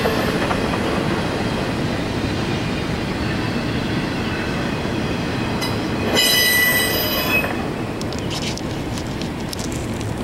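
Norfolk Southern intermodal freight train rolling past steadily, wheels on rail; about six seconds in the wheels give a high squeal for a little over a second, the loudest moment. The rolling noise then eases off, with a few sharp clicks near the end.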